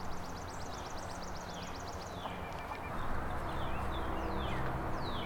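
Songbirds singing: a fast, high trill for the first couple of seconds, then several short notes that slide down in pitch, over a steady low outdoor rumble.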